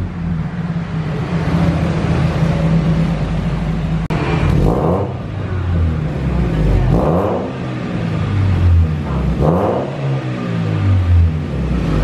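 Toyota Great Corolla's four-cylinder engine idling, blipped three times at roughly even spacing, each rev rising and dropping back quickly. It is heard through an NDK DK-03v3 racing muffler held up to the tailpipe.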